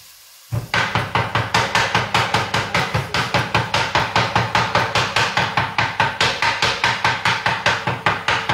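Large kitchen knife chopping raw ossobuco (veal shank) meat on a wooden cutting board, mincing it by hand with fast, even strokes at about five a second, starting about half a second in.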